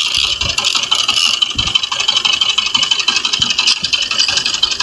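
Fishing boat's small inboard engine idling with a steady, fast rattle.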